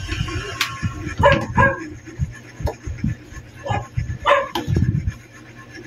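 A dog barking several times in short barks, a pair about a second in and more around four seconds. Between them are light clicks and knocks from the plastic panels of a collapsible storage cabinet being fitted together.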